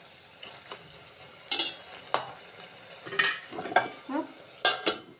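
A metal spoon stirring greens in a stainless steel pot, scraping and clinking against the pot in irregular strokes over a steady sizzle from the frying food.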